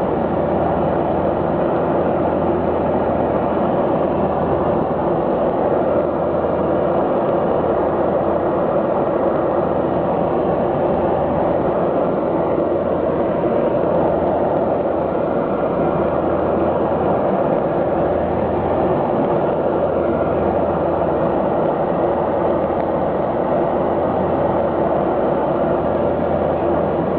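Steady engine and airflow noise of a passenger aircraft heard inside the cabin, with a low hum under an even rushing sound.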